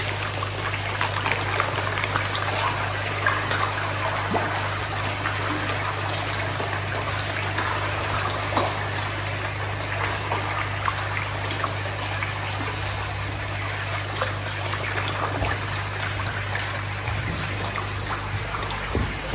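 Water trickling and splashing steadily in a koi pond or tank, with a steady low hum underneath.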